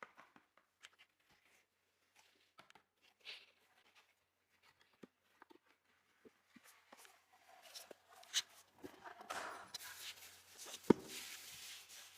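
Unboxing of a water bottle: scattered light taps and clicks, then packaging rustling from about seven seconds in, with a sharp click and, about eleven seconds in, a louder sharp knock.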